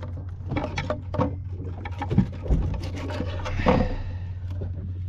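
Fillet knife cutting a sardine into a plug bait on a plastic cutting board, taking off the head and tail: irregular chops, taps and scrapes of the blade against the board, over a steady low hum.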